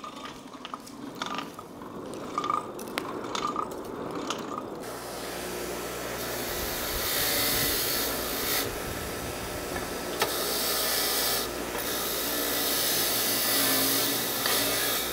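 Bench grinder running with its wheel grinding a small steel plate: a steady hiss over the motor's hum, starting about five seconds in and dropping away briefly a few times. Before that, scattered clicks and crackles from the wood-fired forge.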